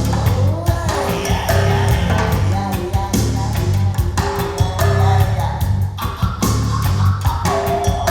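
A band recording played back over Børresen Acoustics hi-fi loudspeakers driven by Gryphon Audio electronics: guitar, drums and a steady pulsing bass.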